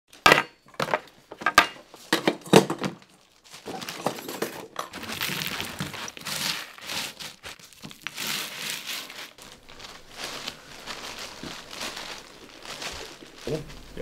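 Foley recording for mountain-bike sounds: metal forks clattering onto a wooden tabletop in a series of sharp strikes, then hands crushing and scraping crumbly clods on the table in a long, continuous crackle.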